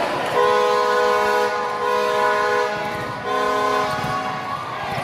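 A loud horn sounding twice, a long held blast of about two seconds and then a short one, over crowd noise.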